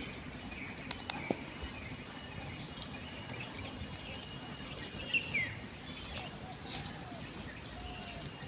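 Outdoor rural ambience: steady background noise with small birds chirping now and then, and a few sharp clicks about a second in.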